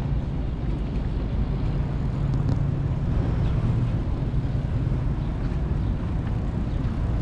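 A steady low engine rumble over outdoor background noise, slightly louder a couple of seconds in.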